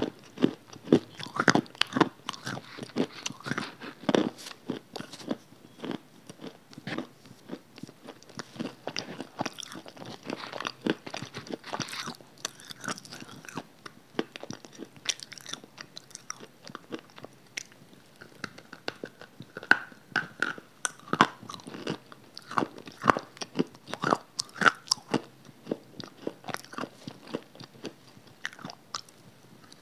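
Close-miked crunching bites and chewing of a hard grey block, with many sharp, irregular crunches.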